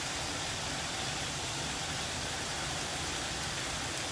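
Chicken breast sizzling on a hot grill pan under a grill press: a steady, even frying hiss.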